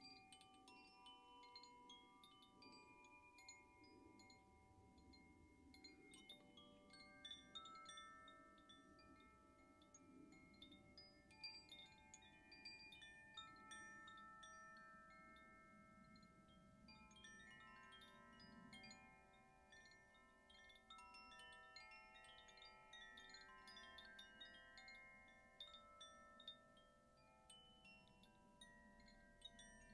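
Hand-held cylindrical wind chimes being swung and shaken, tinkling on and on: many overlapping bell-like tones, each ringing for a few seconds, over a steady patter of light metallic strikes. Faint.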